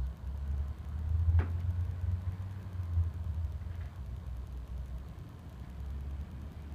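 Low, steady room rumble with a single sharp tap about a second and a half in and a fainter one a few seconds later.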